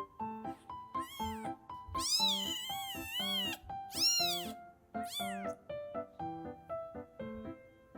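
A kitten mewing four times over piano music: a short high call about a second in, a long wavering call, then two short arched calls.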